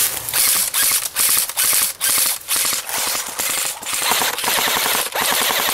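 Airsoft gun firing on full auto in a string of short bursts, each a rapid clatter of shots lasting under a second, with brief pauses between them.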